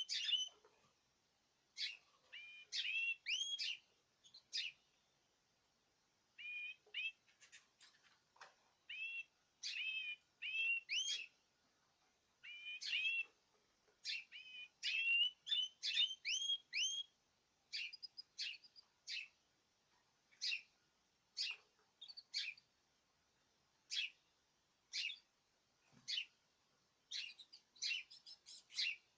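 Several caged birds chirping together: short, rising chirps in quick clusters of a few at a time, with brief pauses between.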